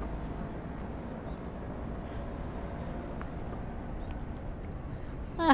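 Steady low outdoor background rumble, with a faint thin high tone through the middle; a voice starts right at the end.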